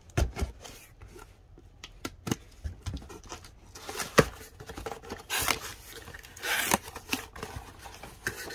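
Hands opening a package holding a Funko Pop box: scattered taps and clicks of packaging being handled, with two short rustling tears about five and a half and seven seconds in.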